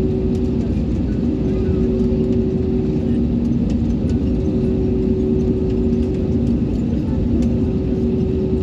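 Airliner engine noise heard inside the passenger cabin: a steady, loud low rumble with a constant hum and a second, weaker hum that drops in and out.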